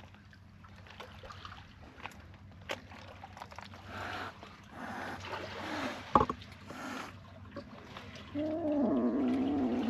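Ginger kitten hissing in several short bursts, with a sharp knock about six seconds in, then a long wavering cry near the end: an angry kitten warning a person off.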